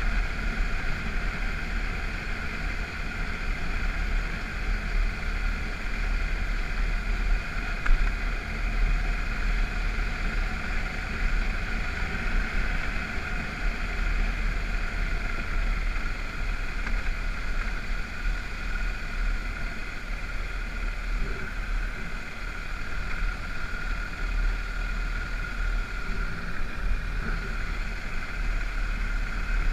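BMW F650GS motorcycle riding steadily along a gravel road: engine running at an even cruise, mixed with wind buffeting the microphone. One short bump stands out about eight seconds in.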